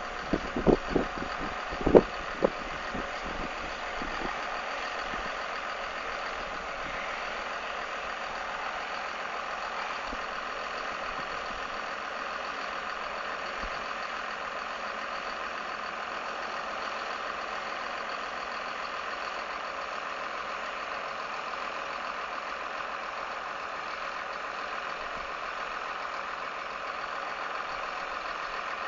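Farm harvest machinery running with a steady, even drone. A few sharp knocks come in the first couple of seconds, the loudest about two seconds in.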